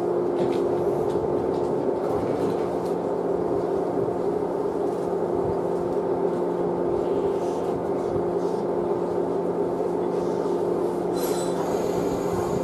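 A stationary Shinano Railway 115 series electric train humming steadily at a few fixed pitches, with a few faint clicks.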